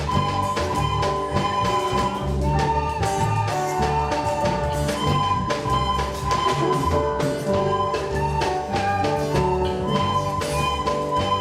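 Instrumental music with a steady beat: melody notes over bass and percussion.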